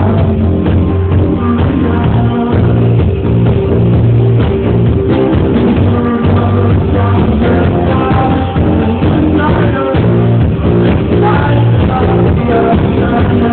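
A band playing a song live: guitar and singing over a steady, loud backing.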